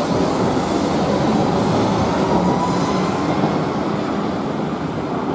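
Wuppertal Schwebebahn suspended-railway car running along its overhead steel track: a steady rumble of the steel wheels on the rail, with a faint wheel squeal about two seconds in.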